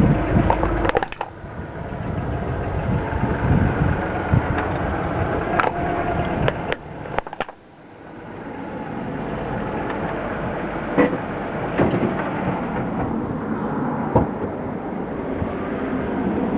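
Car running and driving, a steady rumble of engine and road noise, with a few sharp knocks.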